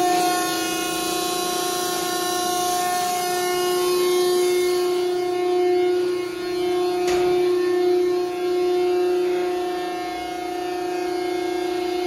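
Hydraulic pump of an SP Industries VB-60 vertical cardboard baler running: a steady, even-pitched mechanical whine. A single brief knock comes about seven seconds in.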